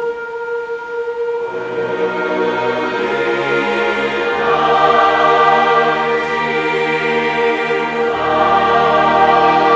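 Large choir singing with orchestra, holding long sustained chords that change every few seconds and swell louder about halfway through.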